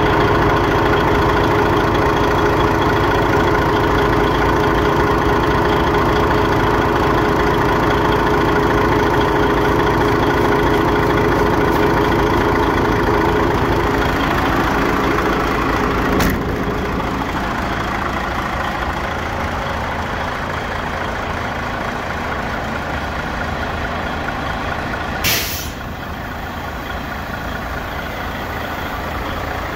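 DAF XF 95.430's six-cylinder diesel idling steadily, louder at first and a little less loud from about halfway through. A short click a little past halfway, and near the end a brief sharp hiss of compressed air venting.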